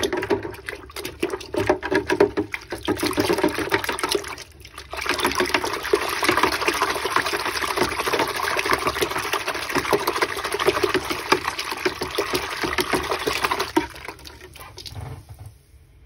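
Water sloshing and splashing in a bucket as a Dyson cordless vacuum filter is swished and plunged in it to wash the dirt out of it, with a short lull about four seconds in. The sloshing dies away near the end.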